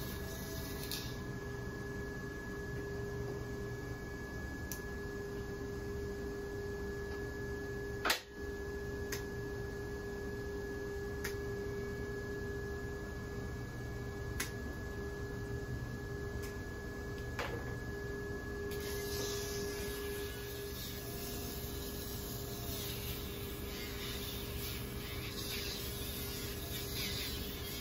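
Pet nail grinder running with a steady high-pitched whine as its rotary drum files down a dog's nails, with a rougher grinding hiss in the last third while the drum is pressed against the nails. One sharp click about eight seconds in.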